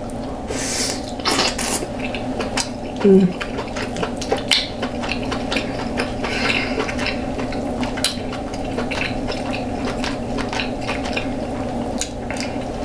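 Close-miked eating sounds of king crab legs: shells cracking and snapping in an irregular run of sharp clicks and crackles, with some plate and utensil clatter.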